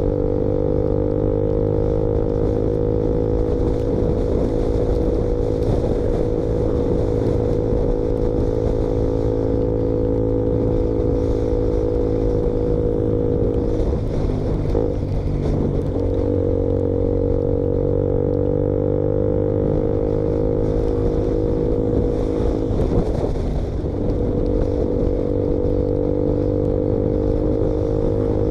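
KTM Duke motorcycle with the exhaust baffle removed, running steadily under way. The engine note holds an even pitch that drifts slowly and breaks briefly twice, around halfway and again late on.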